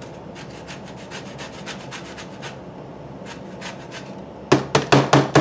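A lemon rubbed in quick repeated strokes down a flat handheld zester grater, rasping off zest. Near the end come several loud sharp knocks in quick succession.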